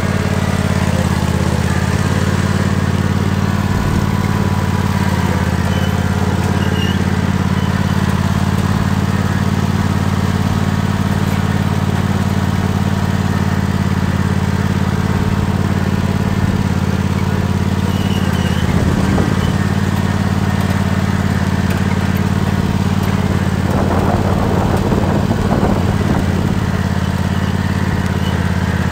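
Tractor engine running at a steady speed while the tractor drives.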